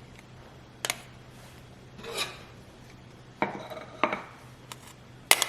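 An idli spoon scraping and clicking against the idli plate as steamed idlis are scooped out: a soft scrape about two seconds in and a few sharp clicks, the loudest near the end.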